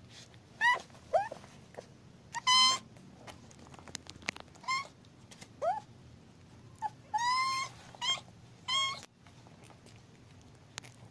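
A newborn kitten mewing: about nine short, high-pitched cries over the first nine seconds, some sliding up and some down in pitch.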